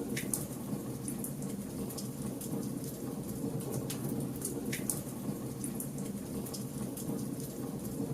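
Campfire burning: a steady low roar of flames with scattered sharp crackles and pops throughout.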